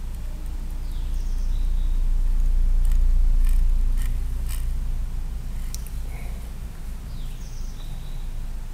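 Low background rumble that swells in the middle and eases off again, with a few faint scattered clicks.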